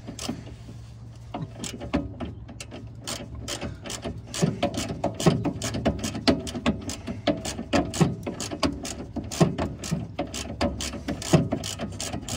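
Hand ratchet clicking in quick runs of strokes as it turns a bolt on a car's steering linkage. The clicks get louder and heavier about four seconds in.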